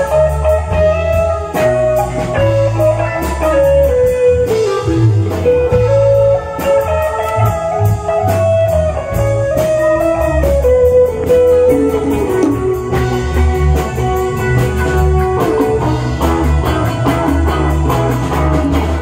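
Live band playing an instrumental passage: a guitar lead line winding over bass and drums, with steady cymbal strokes.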